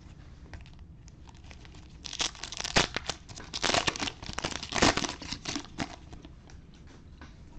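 A plastic cello wrapper on a pack of trading cards being torn open and crinkled by hand, in a burst of loud crackling tears starting about two seconds in and dying down near the end.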